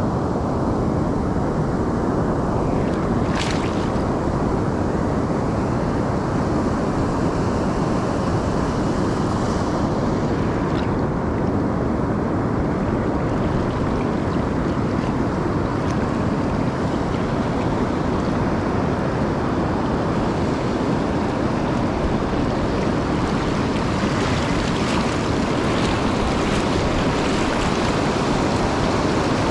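Pacific Ocean surf washing steadily onto the beach, a constant rush, with wind on the microphone.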